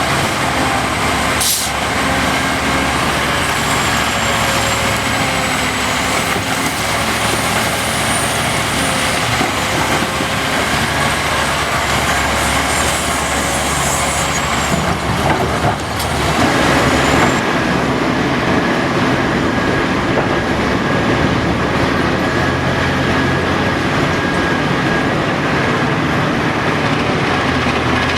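Heavy diesel earthmoving machinery running steadily: a Caterpillar 5130B hydraulic excavator and Cat 777 haul trucks working. A sharp knock comes about a second and a half in, and the noise grows louder and harsher around sixteen seconds in.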